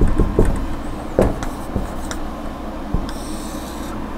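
Dry-erase marker drawing on a whiteboard, a few light taps, then a high squeak of the marker pulled along a line about three seconds in. Under it is the steady low hum of a room air conditioner left running.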